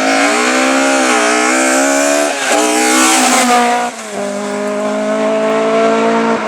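Rally car engine running at high revs. Its pitch drops sharply twice, about two and a half and four seconds in, then climbs again.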